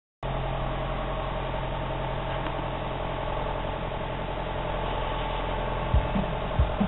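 John Deere 6415 tractor's diesel engine running steadily at low revs while the loader tractor manoeuvres, with a few short clunks near the end.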